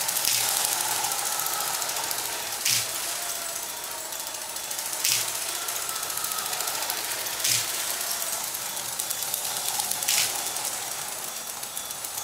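Lego 12V electric trains running on their track: a steady motor whir with a sharp click about every two and a half seconds.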